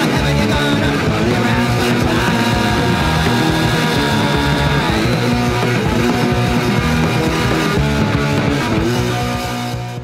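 Punk rock band recording playing the instrumental ending of a song, with electric guitar over bass and drums. It starts to fade out near the end.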